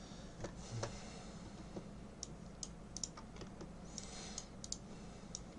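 Irregular keystrokes on a computer keyboard, a scattered handful of sharp clicks, over a steady low hum.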